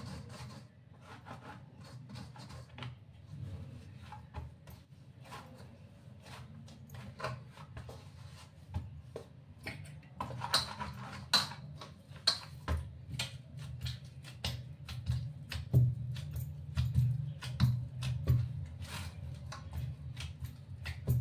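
Hands kneading flour dough in a stainless-steel bowl: irregular pats, presses and knocks of the bowl, growing louder in the second half, over a low steady hum.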